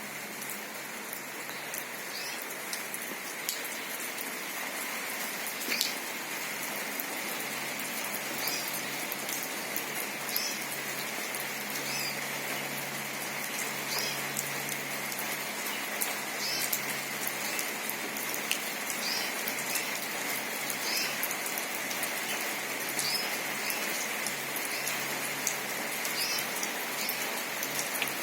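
Steady rain falling, with short high chirps repeating every second or two over it.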